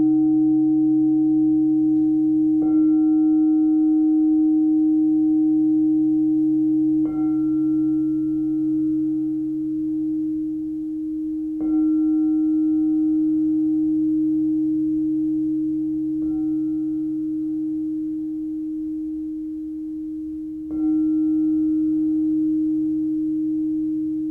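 Pink frosted crystal singing bowl struck lightly with a mallet five times, about every four and a half seconds, each strike renewing one steady, sustained ringing tone with a brief higher overtone that fades.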